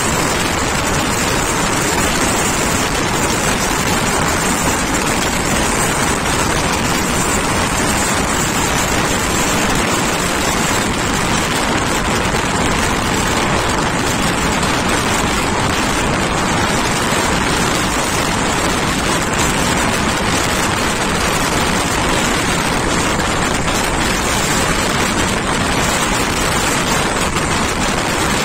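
Steady rush of wind and wheel-on-rail running noise from an express passenger train at speed, heard at an open coach door.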